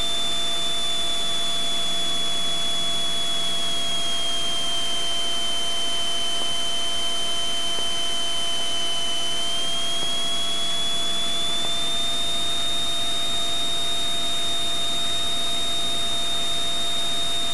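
Cockpit noise of a Cessna T182T Skylane's turbocharged 540-cubic-inch Lycoming six-cylinder engine and propeller running steadily on final approach. A high whine sits over it; it dips slightly in pitch a few seconds in and rises back around ten seconds in.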